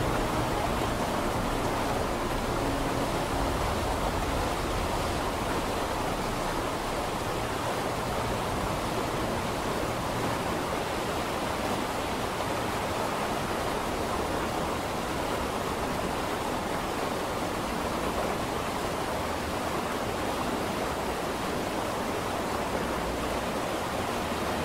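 Steady, even rushing noise with no distinct events, strongest in the low and middle range, with a soft rumble underneath.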